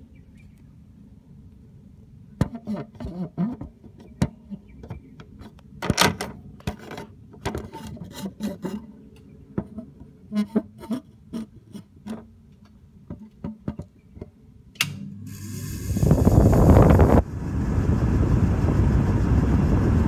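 Irregular scraping and knocking of the phone against the air conditioner's plastic grille, then about 15 seconds in the Rasonic window air conditioner's fan starts on high with a sudden loud rush of air, which eases a little a couple of seconds later into a steady blowing.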